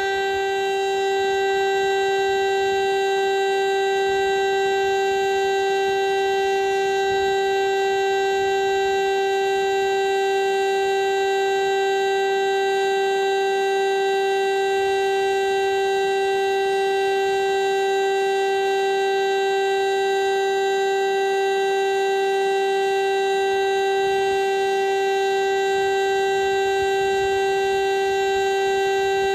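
VEM DS977 mechanical civil-defence siren, an East German motor-driven siren, sounding one steady, unchanging tone at full speed: the continuous tone of the Czech monthly siren-test signal.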